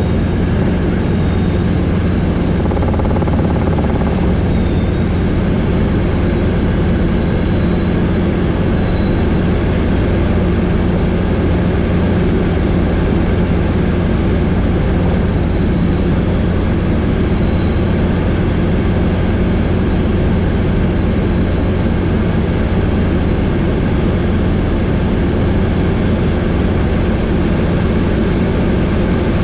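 Helicopter in flight, its rotor and engine making a steady, unbroken drone.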